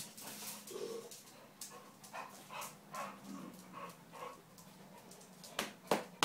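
Pit bull making short, quiet sounds a few times a second as it moves about. Two sharp knocks come near the end.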